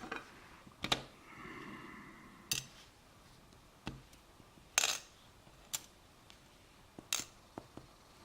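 Small metal clinks of lock pins and cylinder parts dropping and rattling onto a tray as an ASSA lock cylinder is taken apart. About seven separate clicks come at irregular intervals, the loudest about five seconds in.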